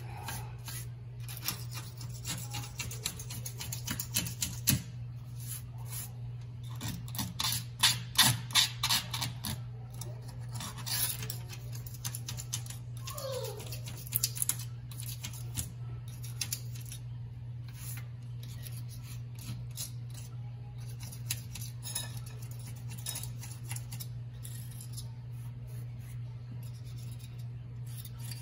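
Old caulk being scraped and picked off the rim of a stainless steel sink with a razor blade: irregular scratching and clicking strokes, thickest about a quarter of the way in, over a steady low hum.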